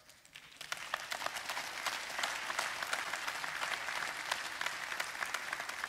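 Congregation applauding: many hands clapping, swelling over the first second and then holding steady.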